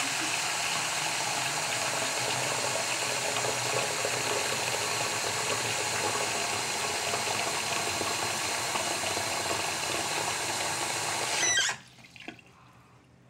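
Bathroom tap running, a steady rush of water that stops abruptly near the end.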